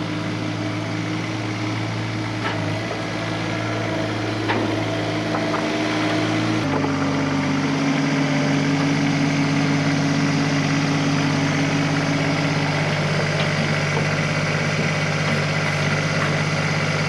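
Engine running steadily, then its speed steps up about seven seconds in and holds at the higher pitch.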